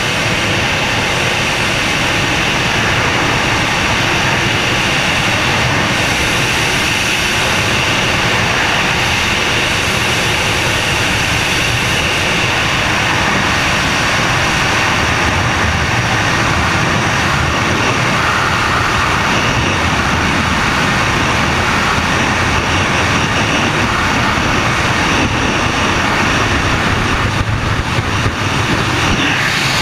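Skydiving freefall wind rushing over a helmet-mounted action camera: loud, steady wind noise that gets a little rougher near the end.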